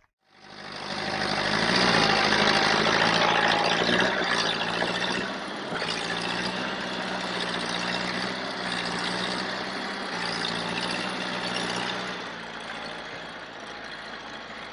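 Farm tractor's diesel engine running hard under heavy load as it drags logs through mud, its front wheels lifted off the ground by the strain. The engine is loudest over the first few seconds and a little quieter from about five seconds in.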